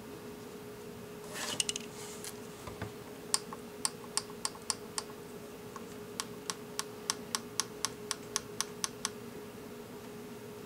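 Philips under-cabinet CD player clicking: a handling rustle about a second in, then two runs of sharp plastic clicks, the second a steady series of about three a second. A faint steady hum runs underneath.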